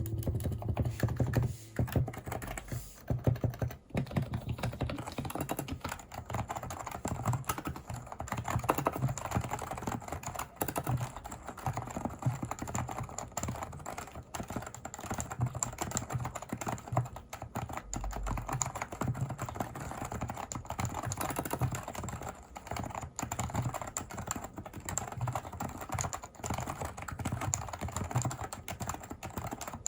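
Continuous fast typing on a Leopold FC660C keyboard with Topre electrostatic capacitive switches, a dense, unbroken run of keystrokes.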